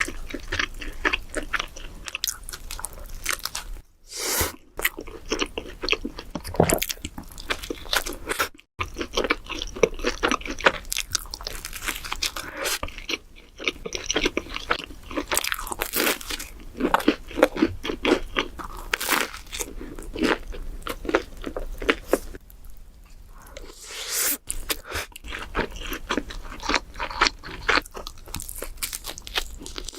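People biting and chewing deep-dish pizza close to the microphone: a dense run of crunching and mouth sounds, broken by a few short silences where one eater's clip gives way to the next.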